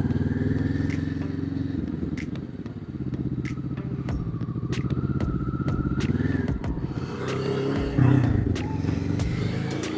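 Motorcycle engine running while riding, easing off about two seconds in, then rising in pitch again as it accelerates, with a louder surge near the end.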